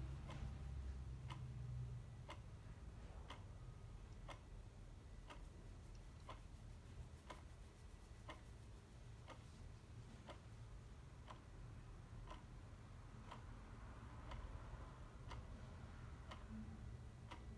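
Clock ticking steadily, faintly, about one tick a second, over a low steady rumble.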